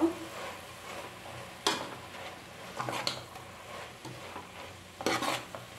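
A steel ladle stirring amaranth greens, onion and tomato frying in an aluminium pot, scraping against the pot's sides a few times, with the strongest scrapes about a second and a half in and again near the end. The frying goes on underneath as a low sizzle.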